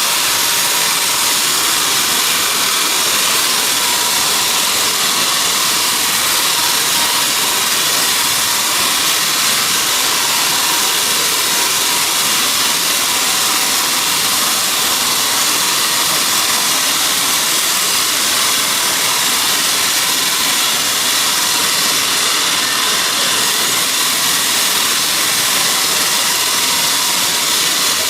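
Steady, unchanging machine noise, heard as an even hiss with no strokes or changes in pitch.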